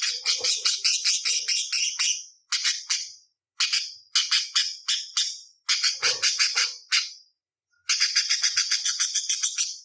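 Budgerigar chattering in rapid strings of sharp, scratchy notes, several quick phrases with brief breaks between them.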